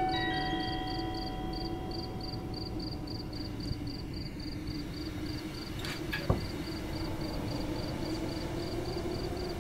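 Steady high-pitched insect chirping, about three chirps a second, over a low steady hum. A ringing chord fades out over the first few seconds, and a single sharp click sounds about six seconds in.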